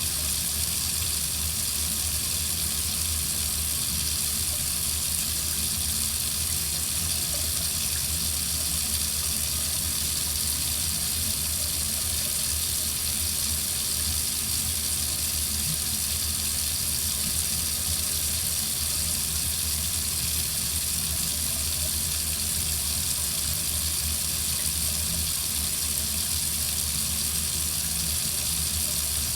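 Water faucet running in a steady, unbroken stream: an even hiss with a low rumble underneath.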